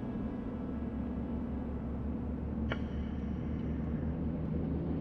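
Steady engine and road rumble of a moving vehicle heard from inside the cab. A brief click with a short high ring comes about halfway through.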